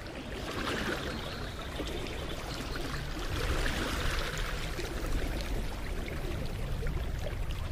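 A creek flowing steadily, its water rushing and splashing over a cobble bed, swelling a little toward the middle.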